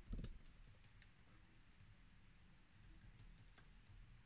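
Faint computer keyboard typing and scattered clicks, with a low thump right at the start.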